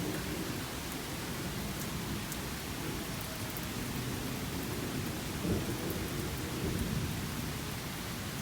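Steady rain falling, with low thunder rumbling underneath and swelling twice in the second half. A faint, slowly falling tone from a distant outdoor tornado siren winding down sits under the rain in the first few seconds.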